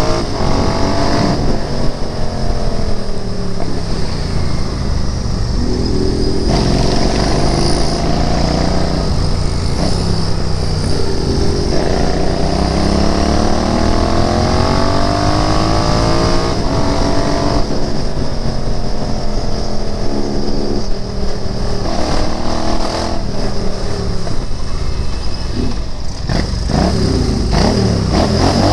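Royal Enfield Interceptor 650's 648 cc parallel-twin engine under way. The revs climb and fall several times, with sudden changes in pitch at gear shifts.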